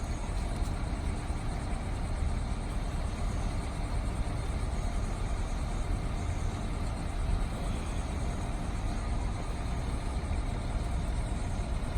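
Steady low rumbling background noise with a fainter hiss above it and no distinct events.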